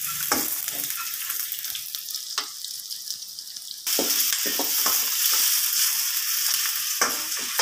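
Sliced onions, lemongrass, green chillies and spices sizzling in hot oil in a stainless steel wok, stirred with a metal spoon that scrapes and knocks against the pan. The sizzle gets louder about four seconds in.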